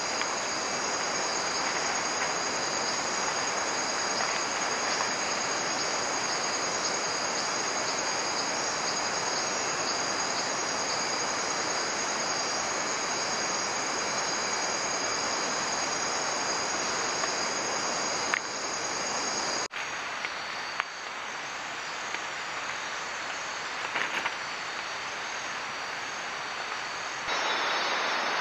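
Steady nighttime jungle insect chorus, a constant high trilling over an even hiss, that changes suddenly about twenty seconds in and again near the end.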